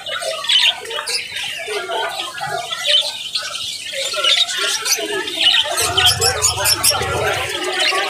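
A flock of caged budgerigars chattering: a dense mix of short chirps, squawks and warbling calls. A low rumble joins in for a second or two near the end.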